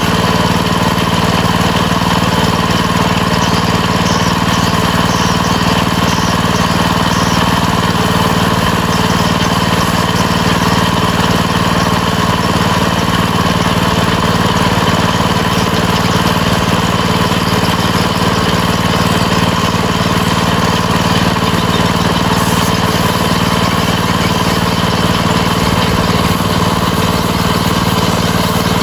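An engine running steadily at an even, unchanging idle.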